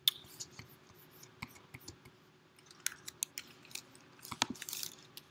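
Quiet, irregular clicks and taps of a laptop's keys and trackpad, a small cluster of them near the end, over a faint steady hum.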